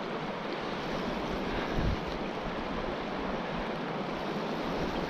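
Fast river current rushing steadily over a shallow riffle, with a brief low bump about two seconds in.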